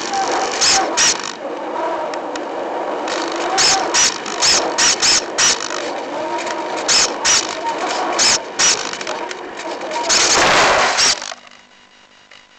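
Onboard audio of an FPV model plane in flight: a steady rush of motor and air noise broken by many short crackling bursts. About eleven seconds in it cuts off suddenly as the plane comes to rest on the ground, leaving only a faint steady hum.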